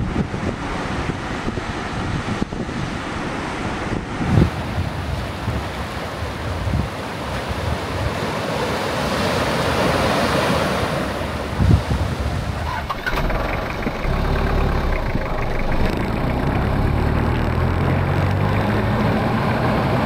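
Wind buffeting the microphone over surf breaking in a rocky sea cove, with the surf swelling around the middle. About two-thirds of the way through it changes to the steady low hum of a Toyota Hilux driving on a paved road.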